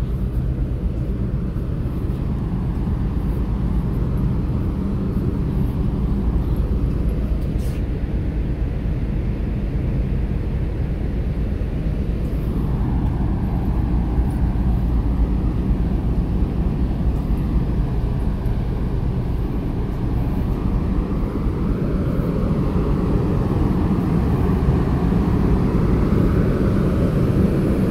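Steady low drone of a passenger ferry's engines and deck machinery.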